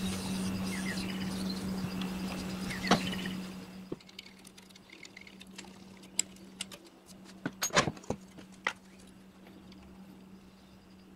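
Workshop handling of a steel knife blade and its wooden handle on a wooden workbench: light rustling and scratching, then a few sharp clicks and knocks, the loudest a quick cluster about eight seconds in, over a steady low hum.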